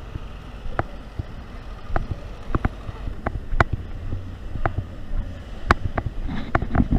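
Outdoor city ambience: a steady low rumble of wind and traffic, broken by irregular sharp clicks and knocks about once or twice a second.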